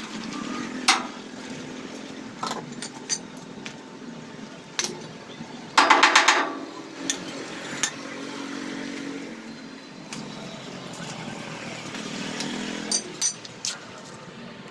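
Metalworking shop noise: several sharp metal clinks and a brief loud buzz about six seconds in, over a steady engine hum.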